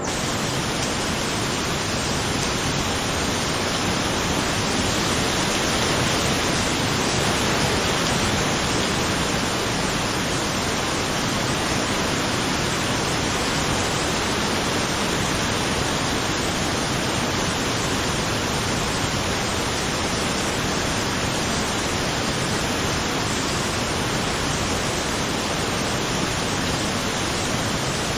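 Heavy rain falling, a steady dense hiss with no single drops or other sounds standing out.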